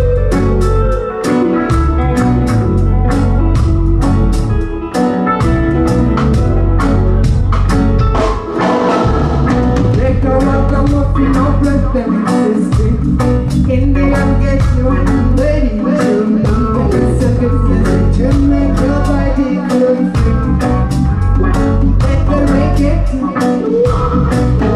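Live reggae band playing, with heavy bass and a steady beat under a woman's lead vocal. The bass drops out briefly every four seconds or so.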